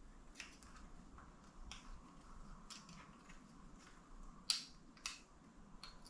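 Faint clicks and ticks of small crimped wire terminals being pushed by hand into a three-pin Seatalk cable connector, with two sharper clicks about half a second apart near the end.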